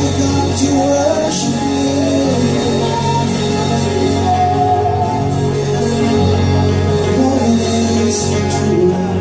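Live worship band playing and singing: a lead vocal melody over keyboard, guitar, steady bass notes and drums.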